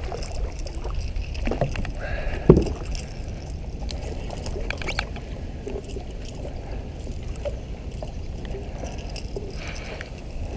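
Sounds of a kayak out on a river: a steady low rumble of wind and moving water, scattered light clicks and taps, and one sharp knock about two and a half seconds in.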